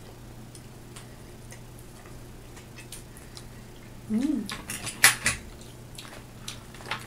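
A fork clinking and scraping against shells and a metal serving tray: a quick cluster of sharp clicks about four to five seconds in, the sharpest near the middle, after a short hummed "mm". Otherwise only a few faint ticks over a low steady hum.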